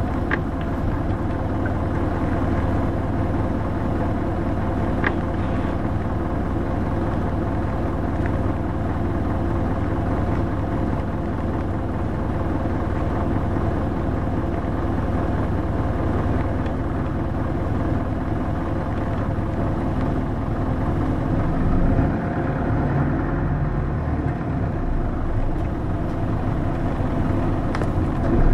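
Hino SDG-HX9JLCE (Poncho) small city bus running along its route, its diesel engine giving a steady hum. The low rumble shifts about 22 seconds in.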